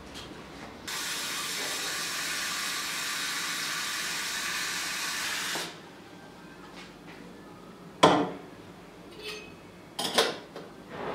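Kitchen tap running steadily into a glass teapot for about five seconds, then shut off. Then a sharp knock, and near the end a few clinks of the glass teapot and its lid.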